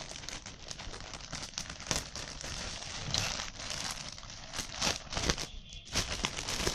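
Clear plastic packaging crinkling and crackling in irregular bursts as hands handle a pillow inside it and pull it out.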